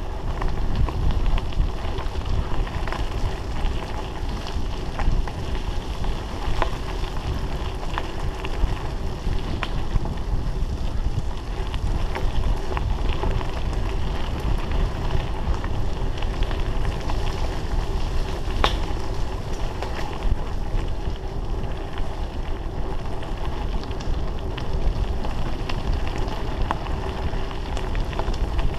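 Wind rushing over the microphone of a camera on a mountain bike riding fast along a dirt trail, mixed with the rumble of tyres on dirt. Scattered knocks and rattles come as the bike goes over bumps.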